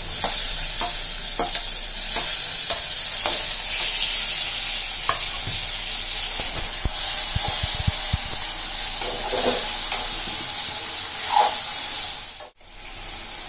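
Chopped tomatoes sizzling in hot oil with frying onions in a metal kadai, stirred by a metal spoon that scrapes and clicks against the pan. The sound drops out for a moment near the end.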